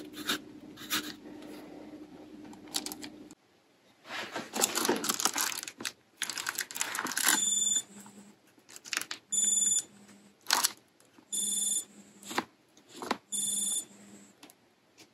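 Crinkling of a Reflectix foil-bubble insulation cover being handled. Then, from about halfway through, a timer alarm beeping in short bursts about every two seconds, marking the end of a five-minute heat-retention test.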